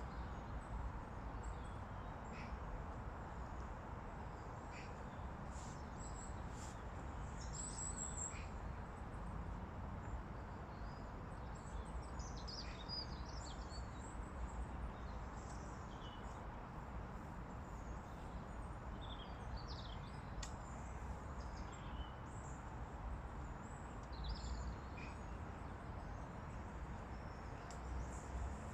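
Birds chirping and calling here and there over a steady outdoor background hiss.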